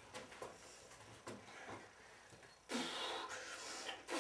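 A person breathing out hard and noisily, straining while trying to lift a weight off the floor: one long strained exhale a little before three seconds in and another starting near the end, after a few faint knocks.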